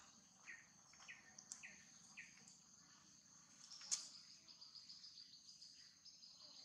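Faint, steady high-pitched insect buzz. Over it come four short falling chirps in the first two and a half seconds, and a single sharp click about four seconds in.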